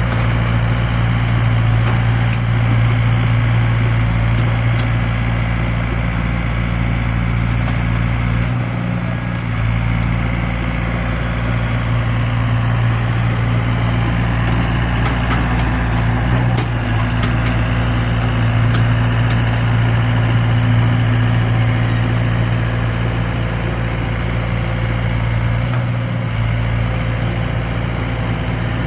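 Heavy earthmoving machine's diesel engine running steadily at a constant speed, with a few faint knocks over it.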